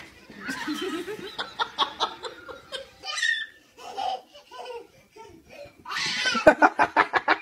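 People laughing in two stretches, the second near the end louder and faster, about six or seven quick ha's a second.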